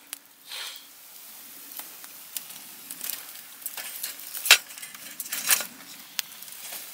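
Wood fire crackling and hissing in a campfire stand, with scattered sharp pops. The loudest pop comes about two-thirds of the way through.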